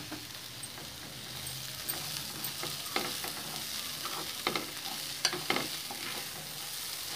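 Ivy gourd pieces sizzling steadily in hot oil in a pan, with a stirring utensil scraping and clicking against the pan as grated fresh coconut is mixed in from about two seconds in.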